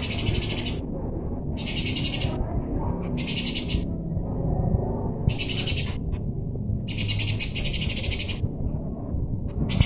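Eurasian tree sparrows giving rapid, buzzy chattering calls in repeated bursts of half a second to a second and a half with short gaps between, the chatter of sparrows fighting. A steady low rumble of background noise runs underneath.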